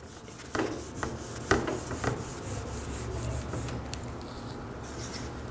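A whiteboard being wiped clean: a continuous dry rubbing with a few short, sharper scuffs in the first two seconds.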